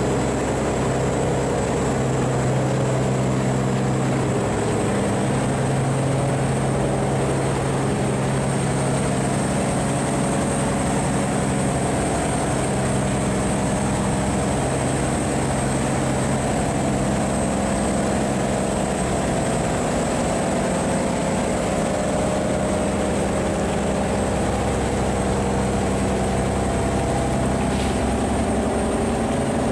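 Diesel engine of a sand-laden steel barge running steadily at an even note.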